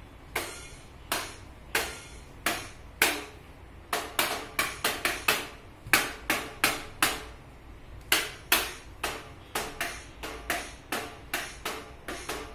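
A child's toy electronic drum pad set being hit with drumsticks in an uneven beat. The hits come slowly at first, then faster and in quick runs from about four seconds in.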